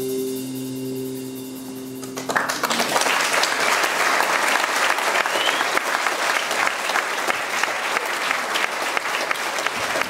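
A band's final held chord, with guitar, fades out. About two seconds in, audience applause breaks out suddenly and carries on.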